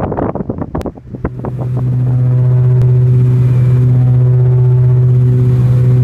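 Wind buffeting the microphone for about the first second, then a cut to the steady drone of a propeller aircraft heard from inside the cabin: a strong low hum with fainter higher tones above it. The drone fades in over about a second and then holds level.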